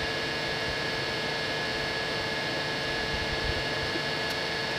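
Cooling fans of a Longer LK4 X 3D printer running steadily: an even whirring hiss with a few constant whining tones and no motor movement.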